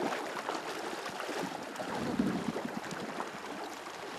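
Water sloshing and splashing as two people wade waist-deep through a lake, pushing through it with their legs and hands, with a louder surge of water about two seconds in.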